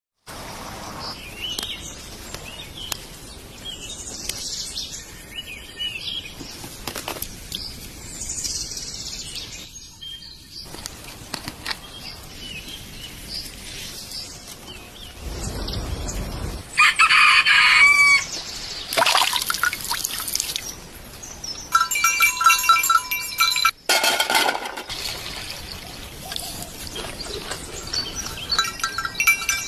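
A rooster crowing loud and clear about seventeen seconds in, among a mix of shorter farmyard and cooking sounds.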